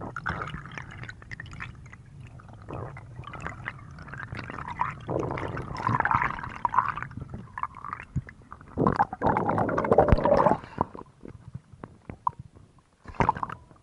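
Underwater bubbling and water noise around the camera as a freediver swims up with his catch, with a louder rush of water and air about nine seconds in as he breaks the surface, then a few small splashes.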